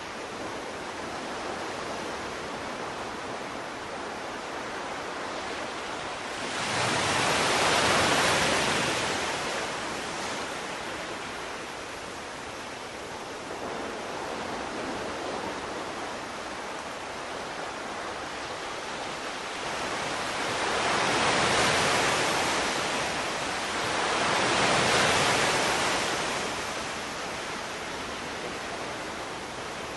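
Sea waves: a steady rush of surf that swells and washes in three times, about seven seconds in, about twenty seconds in and again about twenty-four seconds in.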